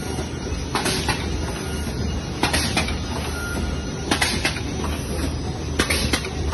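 Shopping-bag making machine running: a steady mechanical hum with a pair of sharp clacks repeating about every 1.7 seconds, one pair per machine cycle.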